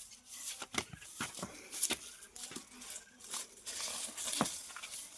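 A dog chewing and tearing at something it has snatched: irregular crinkling and rustling with scattered sharp clicks, the strongest about a second in, just before two seconds and past four seconds.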